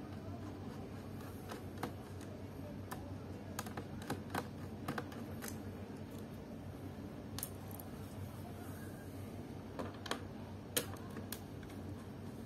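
Scattered light clicks and taps of fingers and plastic against the underside of a Samsung NP300E4X laptop's plastic case as it is handled, several coming in small quick clusters, over a steady low hum.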